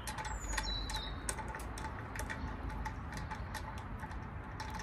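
Quick, irregular light clicking of a ratchet-type wheel tool, several clicks a second, as a wheel nut is spun loose by hand.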